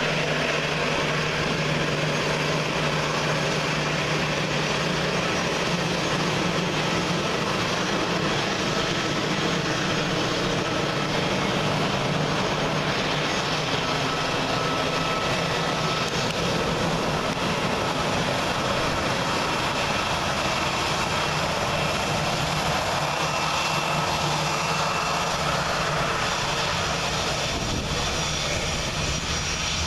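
Airbus A320 jet engines running at taxi power: a steady rush with a thin whine over it, easing slightly near the end as the airliner turns away.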